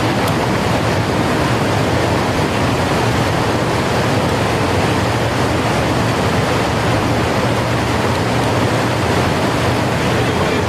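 A steady, even rushing noise with no breaks and no separate events.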